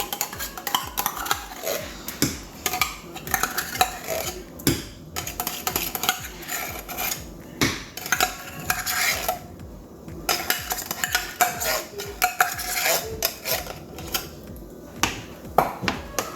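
A metal spoon clinking, tapping and scraping against a pot and tin in irregular strokes, as tomato paste is spooned into blended tomatoes.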